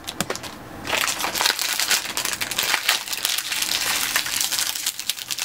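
Small shiny plastic blind bag crinkling and crackling as it is handled and opened by hand. The crinkling starts about a second in and goes on steadily after that.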